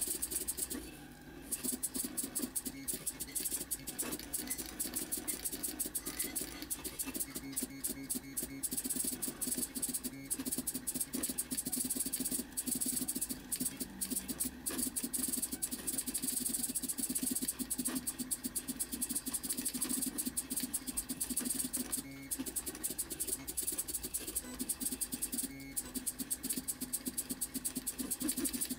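Stepper motors of a homemade pen plotter driving the pen carriage, a buzzing whir with a dense run of rapid irregular clicks, sped up four times. There is a short pause about a second in.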